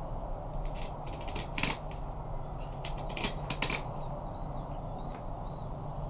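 Fillet knife working along a sheepshead's rib cage: irregular sharp clicks and ticks as the blade scrapes and catches on the ribs and scales, over a steady low hum.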